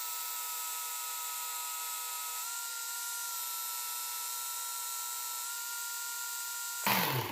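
Work Sharp Ken Onion Edition belt sharpener running with a steady whine as a knife edge is passed over the belt, its pitch stepping slightly a couple of times. Near the end it gives a short louder rush and the pitch drops, as the motor is switched off and winds down.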